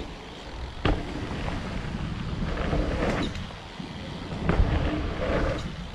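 Wind rushing over a helmet-mounted camera's microphone as a mountain bike rolls down a dirt trail, the tyres running over dirt. A sharp knock from the bike about a second in, with fainter knocks and rattles later.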